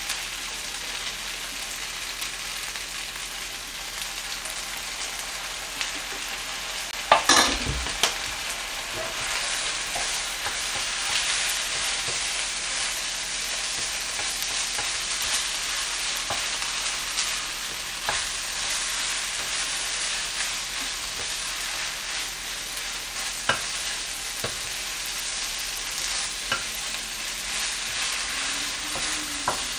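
Soy sauce egg fried rice sizzling steadily in a frying pan on a gas burner while it is stirred and tossed with a wooden spatula. A few sharp knocks break through the sizzle, the loudest about seven seconds in.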